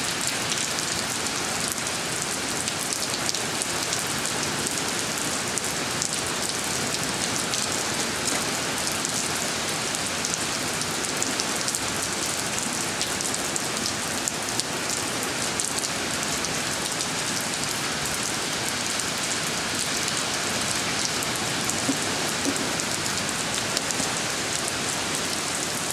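Steady rain falling on a wet, puddled driveway: an even hiss with fine ticks of individual drops.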